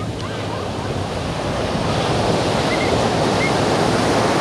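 Ocean surf: waves breaking and washing up the beach, the wash growing louder about two seconds in, with wind rumbling on the microphone.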